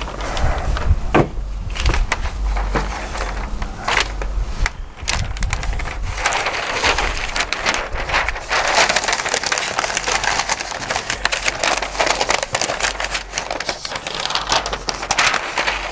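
A sheet of paper crinkling and rustling as it is folded around a smoked brisket on a metal sheet pan, a dense crackle for most of the second half. A few sharp knocks come in the first seconds.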